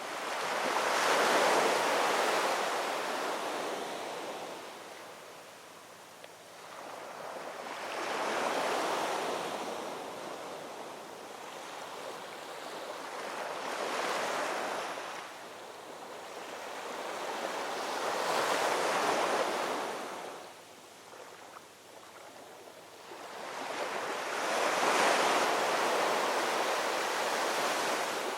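Ocean waves rolling in and washing up on the shore. Five surges of surf, each swelling and then fading, come about every five to six seconds.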